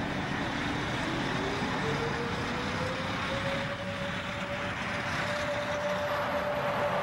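DB Class 103 electric locomotive approaching and passing close, a steady rumble with a whine that rises in pitch for about two seconds and then holds.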